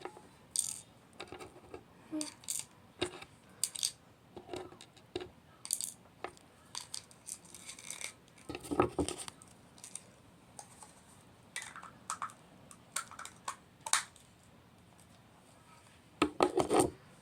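Small plastic toy pieces and packaging handled by hand: an irregular string of short clicks, clinks and rustles, with louder handling about nine seconds in and near the end.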